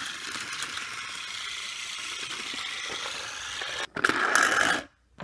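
Small motor of a toy train running, with a steady whirring rattle of its gears. It grows louder for about a second near the end and then cuts off suddenly.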